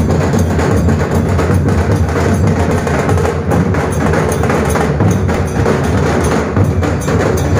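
Dhol drums played fast and loud in a steady, dense run of strokes with sharp clicking hits.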